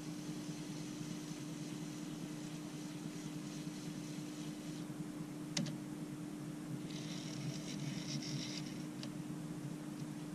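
Steady low hum with one sharp click about halfway through and a short burst of rapid, fine clicking later on, as fishing tackle is handled at the side of a boat.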